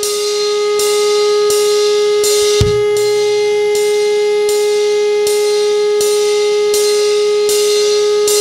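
A civil-defence siren sample holding one steady pitch, the sound of an air-raid warning test, with drums under it: a cymbal struck about every two-thirds of a second and a single deep drum hit a little under three seconds in.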